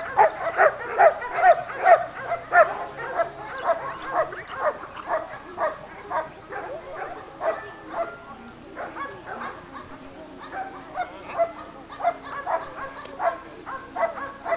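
Dog barking repeatedly, about two to three barks a second. The barking is loudest in the first few seconds, fainter in the middle and stronger again near the end.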